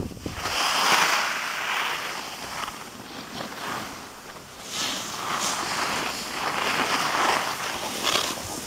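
Edges scraping and hissing over packed snow during a snow-sports descent, swelling and fading with the turns.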